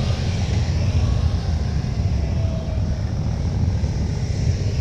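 Can-Am Spyder three-wheeled motorcycles and road traffic running past: a steady deep rumble with hiss over it.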